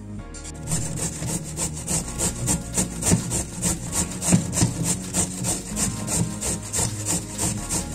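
A carrot being grated by hand on a stainless-steel box grater: rhythmic rasping strokes at about three a second, starting just under a second in.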